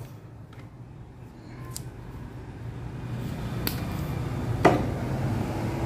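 Light clicks and taps of hands handling insulated wires with crimped terminal lugs, with one sharper click about three-quarters of the way through, over a low hum that grows louder from about two seconds in.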